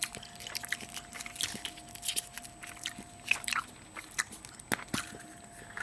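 Close-up chewing and crunching of Kinder Surprise milk chocolate, with irregular sharp crackles and clicks.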